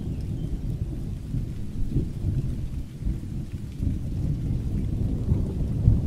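Thunderstorm: a low rolling rumble of thunder that swells and fades several times, over a faint steady hiss of rain.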